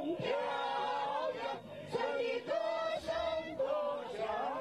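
A crowd of rally-goers' voices raised together in unison, holding notes that step up and down in pitch with short breaks between phrases.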